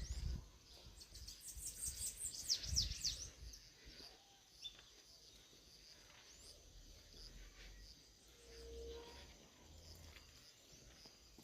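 Countryside ambience: small birds chirping, with a brief burst of quick calls about one to three seconds in, over a faint steady high insect drone.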